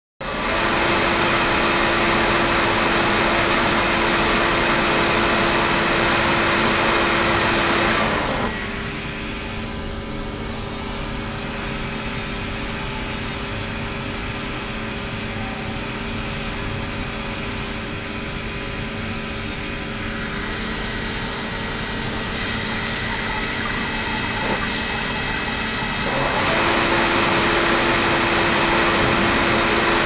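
Water streaming from a hose into an ultrasonic tank, a steady splashing hiss with a steady hum under it. About eight seconds in it drops quieter and the hum changes, then it comes back louder near the end, as the water surface goes calm and then churns again.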